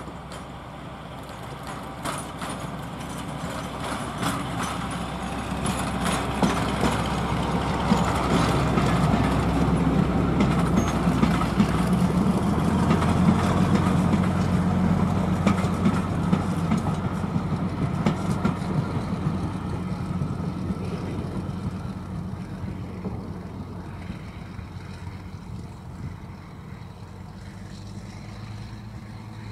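Class 52 Western diesel-hydraulic locomotive D1015 'Western Champion', its twin Maybach diesel engines running under load as it hauls a train of coaches past. The sound builds to a peak about halfway through, with wheels clicking over the rail joints as the coaches go by, then fades away.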